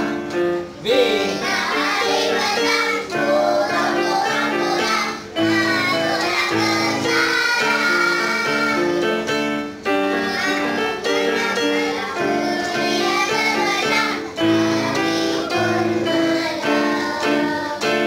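A group of children singing together to an electronic keyboard accompaniment, the keyboard playing steady chords under the melody.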